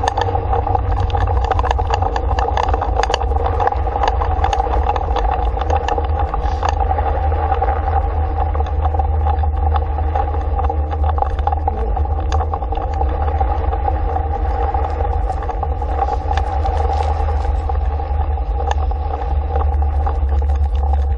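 Dog scooter rolling at speed over a snow-packed road: a steady low rumble of wheel and wind noise on the mounted camera's microphone, with a constant steady tone and frequent small rattles and clicks.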